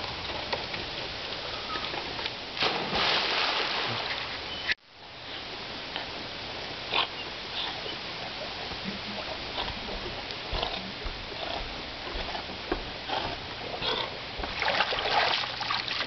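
Wheaten terrier swimming in a pool: water splashing and sloshing, with short animal noises from the dog. A louder stretch of splashing comes near the end as it climbs out onto the deck.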